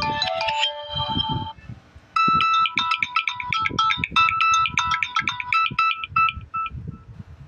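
Samsung Galaxy A04s ringtones playing: one melody ends about a second and a half in, and after a short pause a new one starts, a quick run of bright electronic notes that fades out near the end.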